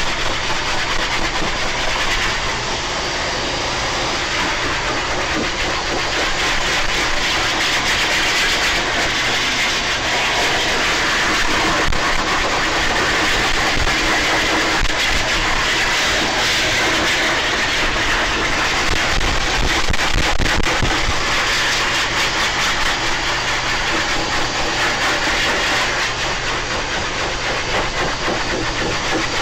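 High-velocity pet grooming dryer running steadily, its motor and the loud rush of air blowing out through the hose and nozzle onto a dog's coat.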